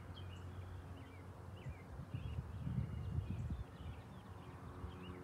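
Small birds chirping in short repeated notes, over a low rumble that swells for about two seconds in the middle.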